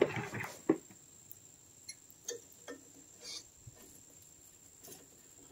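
Clicks and clatter of parts being handled at a truck's front disc brake caliper bracket: a burst of clatter in the first second, then scattered light taps.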